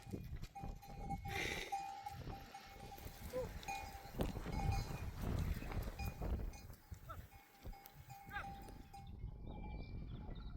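Bells on a moving herd of sheep ringing on and off, with a few short bleats.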